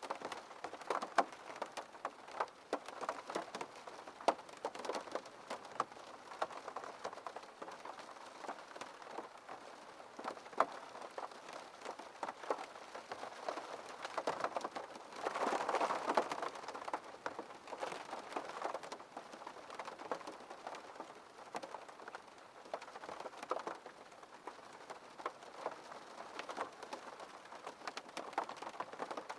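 Rain falling on a window pane: many separate drops tap the glass over a steady wash of rain. The rain swells heavier for a couple of seconds a little past halfway.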